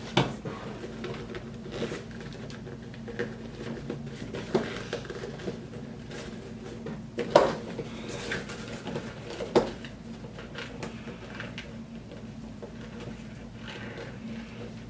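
Roller skates and their parts being handled on a hard surface: scattered knocks and clatters, the loudest about seven seconds in, with light clicks between, over a steady low hum.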